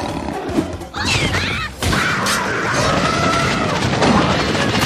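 Cartoon soundtrack of music with slapstick sound effects: a sudden crash just before two seconds in, followed by a long, slowly falling tone.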